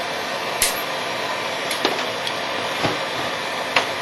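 Wire snips cutting the ends off a carbon-steel hacksaw blade: several sharp clicks and snaps, the loudest about half a second in and near the end, over a steady hiss.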